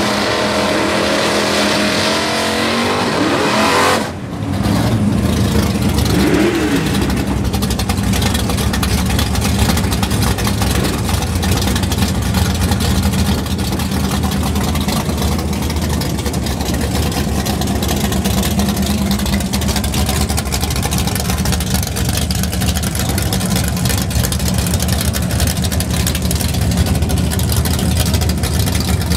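A car engine revs up, rising in pitch for about four seconds, then breaks off abruptly. After that, a Pontiac GTO drag car's V8 idles with a steady, deep rumble as it rolls up toward the starting line.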